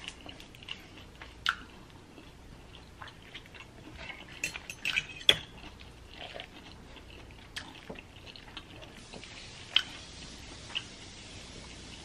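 Close-up eating sounds: chewing, with a metal fork clinking and scraping against a glass bowl of noodles as it twirls them up. The small clicks are scattered, with a quick flurry about five seconds in.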